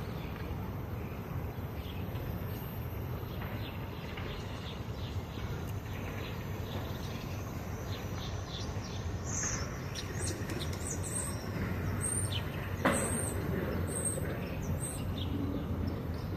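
Sparrows chirping in short, scattered chirps over a steady low background rumble, the chirps coming thicker from a little past halfway. One sharp knock about three-quarters of the way in.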